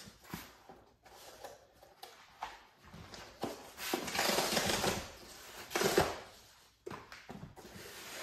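Flat cardboard box being handled on a tabletop: hands rubbing and sliding over the cardboard and shifting the box, with a few light knocks. The loudest parts are a longer scrape about four seconds in and a short one around six seconds.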